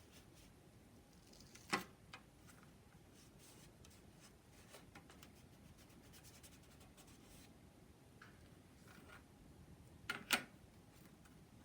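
Faint rubbing and scratching of hands working tape onto a balsa-wood tail, with two sharp clicks, one near the start and a louder one near the end.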